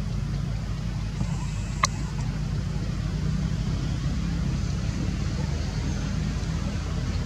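Steady low rumble with one sharp click a little under two seconds in.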